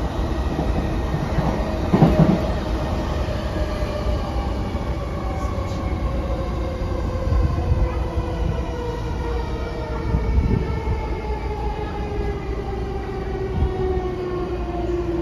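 Onboard running sound of a JR East E233-5000 series electric train slowing for a station: traction motor whine falls steadily in pitch over a constant wheel and track rumble. One thump comes about two seconds in.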